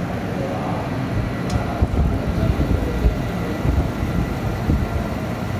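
Fiber laser marking machine running while it engraves a stainless steel disc: a steady low rumble with a faint, steady high whine, and one short click about one and a half seconds in.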